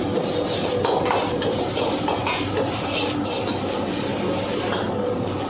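Chicken pieces sizzling as they are stir-fried and tossed in a wok, with scraping and knocking of the metal ladle against the pan.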